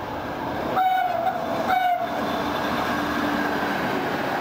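A triple set of ALn 668 diesel railcars passing close, giving two short horn blasts, the first about a second in and a shorter one just after, over the running of the diesel engines and the wheels on the rails.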